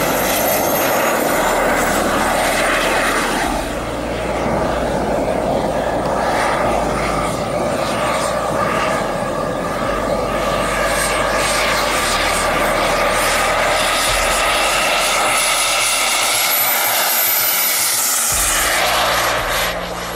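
Model jet's turbine engine running with a high whine over a steady rush of exhaust. Late on, the whine climbs in pitch as the turbine spools up for the takeoff run.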